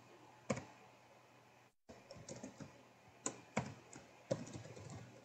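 Computer keyboard keystrokes, scattered and unhurried, about one or two a second, with a brief dead gap in the sound just before two seconds in.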